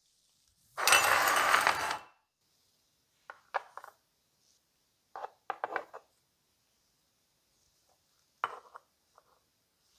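Polished brass lens tubes and threaded rings of opera glasses set down on a wooden table: three short clusters of light metallic clinks and taps. Before them, about a second in, comes a loud rush of noise lasting about a second.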